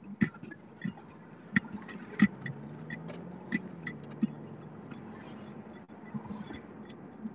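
Car turn-signal indicator ticking at an even pace, about one tick every two-thirds of a second, over the low hum of the car running inside the cabin.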